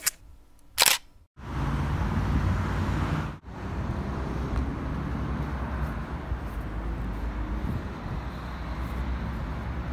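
A short sharp sound at the end of a logo intro, then steady outdoor noise: wind rumbling on the microphone over a hiss that may carry distant traffic.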